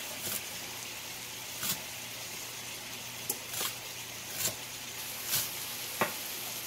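Chef's knife chopping fresh herbs on a bamboo cutting board, about seven separate strokes at uneven intervals. Under them, the steady sizzle of ground bison frying in a pan on high heat.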